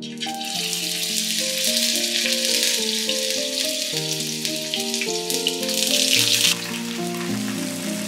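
Raw potato slices sizzling in hot oil in a frying pan as they are laid in, with small crackles, over background music. The sizzle drops sharply about six and a half seconds in and goes on more quietly.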